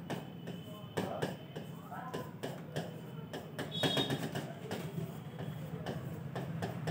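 Stylus tapping and scratching on the glass of an interactive touchscreen board as numbers are written: a run of irregular clicks over a low steady hum.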